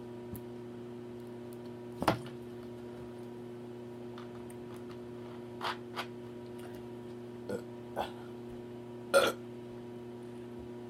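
A woman's short burps while eating, a loud one about two seconds in and the loudest near the end, with a few fainter mouth sounds between them. A steady low hum runs underneath.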